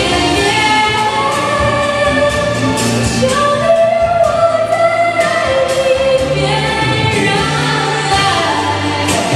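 Female vocalist singing a Mandarin pop song into a handheld microphone over musical accompaniment, holding one long note near the middle.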